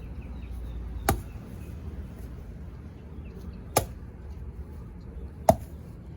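Three separate chopping blows into a papaya tree's trunk: one about a second in, one near four seconds and one near the end.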